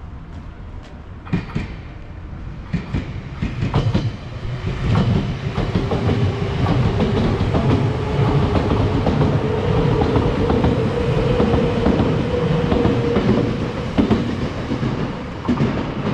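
Train passing: wheels clacking over the rail joints, swelling louder about four seconds in. A steady whine rides over it through the middle of the pass.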